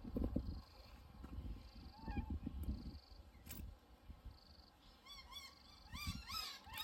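Wild birds chirping in quick runs of short, repeated high notes, loudest in the last couple of seconds. Low rumbling in the first few seconds.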